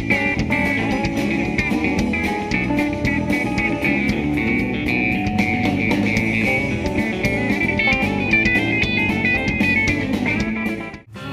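Twangy Telecaster electric guitar playing a fast hybrid-picked (chicken-picking) country lead over a live band. The music breaks off abruptly for a moment near the end.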